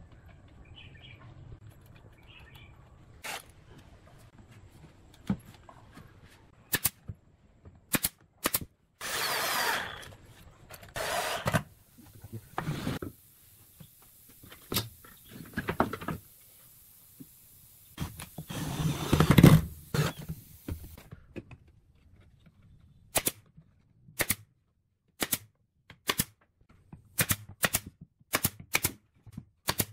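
Woodworking power tools: a drill runs in several short bursts in the middle, then a nail gun fires a quick series of about ten sharp shots into a wooden frame near the end.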